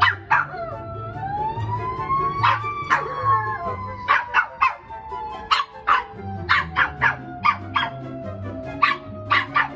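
A dog barking and yipping in short, sharp calls many times, over one long drawn-out whine that rises for about two seconds and then slowly falls. Background music plays throughout.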